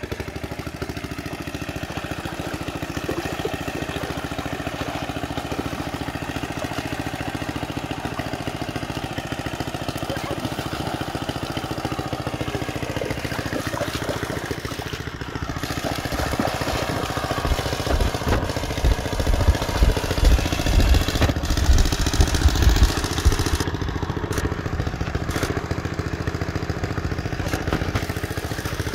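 A small engine runs steadily at an even idle-like pace, with water splashing as someone wades through shallow water, loudest a little past the middle.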